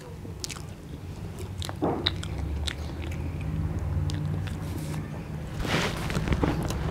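Close mouth noises of two people eating cream cake face-down from plates without hands: biting and chewing with scattered small clicks, and a louder noisy burst near the end.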